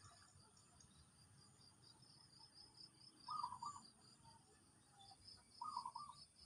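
Insects chirping in a steady pulsing rhythm, about four pulses a second, with a thin high steady tone behind it. Twice, about three and five and a half seconds in, a short burst of rapid repeated notes stands out as the loudest sound.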